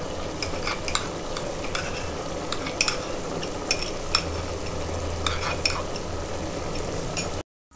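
A steel spoon scraping and clinking against a small bowl as thick sesame paste is scraped into a pressure cooker of curry. Scattered sharp clicks sit over a steady hiss, and the sound cuts off suddenly near the end.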